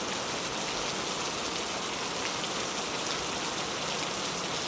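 Gentle rain falling steadily, a constant even patter without thunder.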